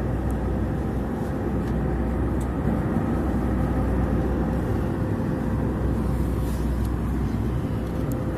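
Steady drone of engine and airflow noise heard inside a jet airliner's cabin in flight, with a low hum and a faint steady tone running through it. A light knock comes near the end.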